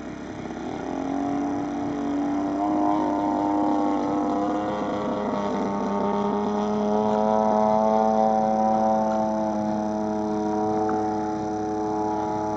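Radio-controlled aerobatic model airplane's engine and propeller running in flight, growing louder as the plane nears. Its pitch drops about five seconds in, then holds steady.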